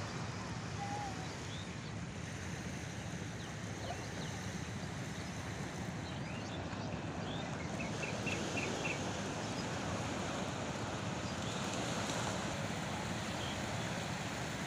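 Steady seaside ambience: a wash of surf with wind buffeting the microphone. A few faint high chirps from birds come through in the middle, including a quick run of five.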